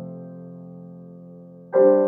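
Slow piano music: a held chord fades away, then a new chord is struck near the end.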